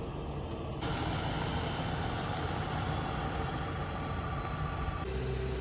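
Volvo 9600 sleeper coach's diesel engine running steadily as the bus moves slowly across the lot, a low rumble with a brighter hiss added from about a second in.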